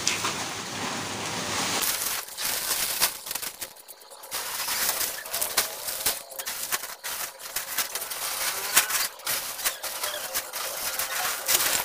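Woven plastic cement sacks rustling and crumpling as they are dragged aside, then a broom sweeping a dusty concrete floor in quick, scratchy strokes.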